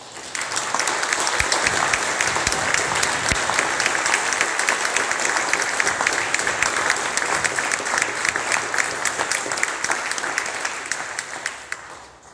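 Congregation applauding, starting all at once and dying away near the end.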